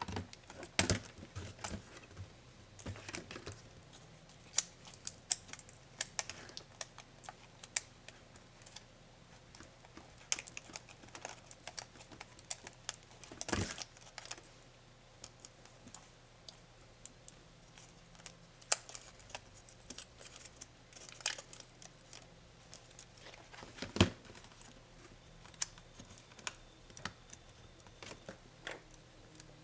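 Irregular clicks and taps of small plastic and metal laptop parts and hand tools being handled during the disassembly of a Lenovo ThinkPad Yoga 260, with a few louder knocks of parts being set down.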